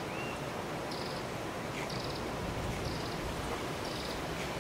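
A small animal's short, high chirp repeating about once a second over a steady background hiss.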